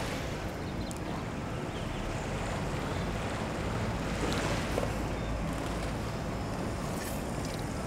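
Wind buffeting an outdoor microphone: a steady low rumble, with a few faint light clicks of kitchen work over it.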